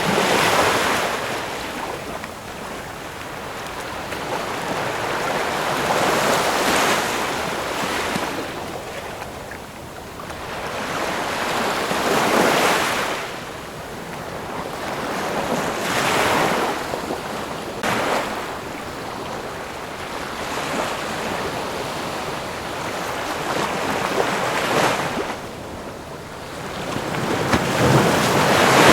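Ocean waves breaking and washing on the shore, one surge after another every four to six seconds, the last one the loudest.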